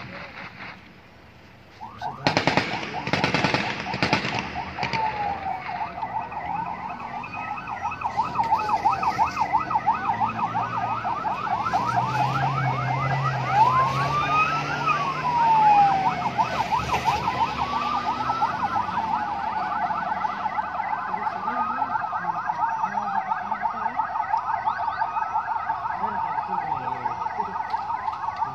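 A rattle of rapid gunfire, then emergency-vehicle sirens: a slow rising-and-falling wail every few seconds over a fast warble, with a vehicle engine passing about halfway through.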